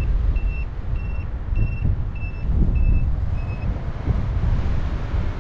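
Paragliding variometer beeping its climb tone, short even beeps at one pitch a little under two a second, which stop about two-thirds of the way through; this is the sign that the glider is climbing in a thermal. Loud wind rushes over the microphone throughout.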